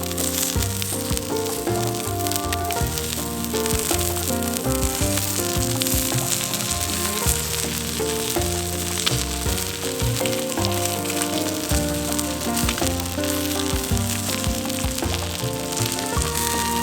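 Steak sizzling as it grills over charcoal, a steady hiss with background music underneath.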